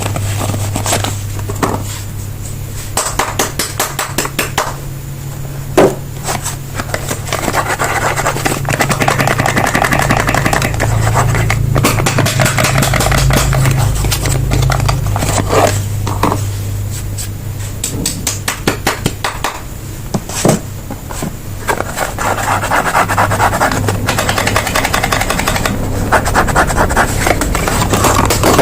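Soap packaging being handled and opened: rapid crinkling and scraping in bursts, with a couple of sharp clicks, over a steady low hum.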